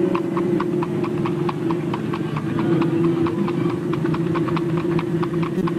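Horse's hooves clip-clopping in a quick, even rhythm on a paved road as it pulls a two-wheeled cart, over a steady low hum.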